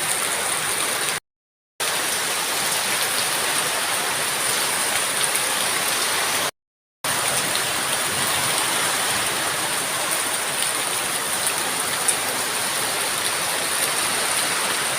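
Heavy rain from a storm pouring down in a steady, dense hiss. The sound cuts out completely twice, briefly, about a second in and again about halfway through.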